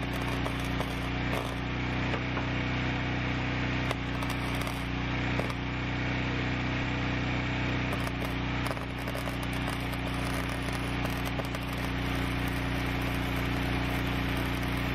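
Wire-feed welder welding continuously: a steady electrical hum under the crackle and spatter of the arc. The weld fixes a rusted, spinning truck-bed bolt to the bed so that its nut can be wrenched off.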